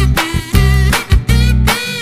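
Background music with a heavy bass line and a steady beat.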